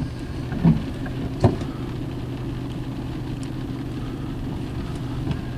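A vehicle engine running steadily, heard from inside the cab, with two short knocks in the first second and a half.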